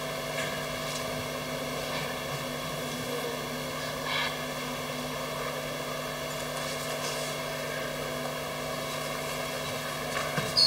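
Steady hum and drone of a hall's room tone, unchanging throughout, with a faint stir about four seconds in and a brief knock near the end.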